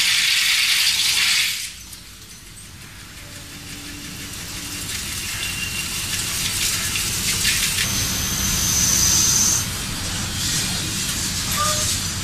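Milling tool of a WFL M60 CNC mill-turn machine cutting a steel workpiece under coolant mist: a loud hissing rattle that drops off sharply about a second and a half in. The hiss then builds back up gradually, with a brief high whistle partway through.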